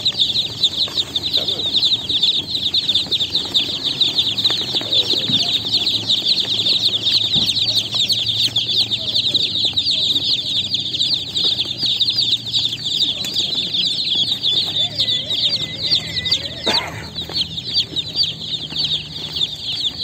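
Dense, continuous high-pitched peeping of a crowd of chicken chicks, many quick falling peeps overlapping without a break.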